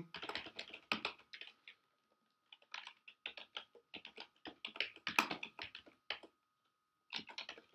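Typing on a computer keyboard: quick runs of key clicks, broken by two short pauses.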